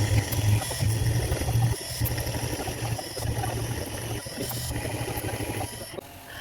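CNC milling machine running, a steady mechanical hum and machining noise that swells and eases in stretches.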